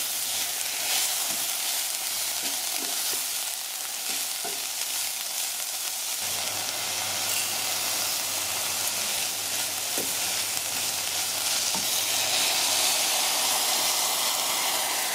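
Sliced onions and green curry paste sizzling in a nonstick pot, stirred with a wooden spatula, with a few light knocks. Dry red lentils are poured into the pan partway through.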